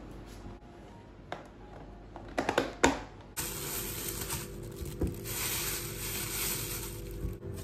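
A few sharp clicks and knocks of kitchen handling, then a thin plastic produce bag crinkling and rustling for about four seconds as ginger is pulled out of it.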